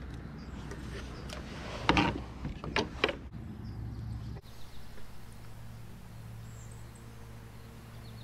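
A few sharp knocks and rubbing sounds about two to three seconds in, over a steady low hum.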